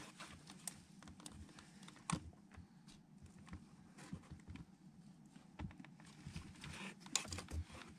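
Faint, scattered clicks and light taps of hands handling wiring and tools in the engine bay, with a sharper click about two seconds in and a few more close together near the end.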